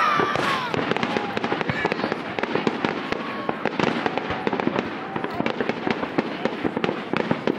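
Fireworks going off: a dense, continuous crackle of many quick sharp cracks and pops.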